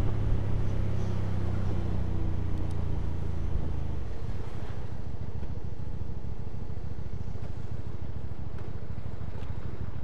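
Hyosung 250cc motorcycle engine running steadily at cruising speed, with wind rush over the helmet camera. About four seconds in the engine note drops away to a lower, rougher rumble as the throttle closes and the bike slows in traffic.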